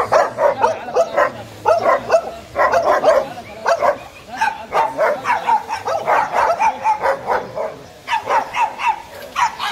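Pit bull-type dog barking over and over in quick barks, about three or four a second, with a brief lull near the end.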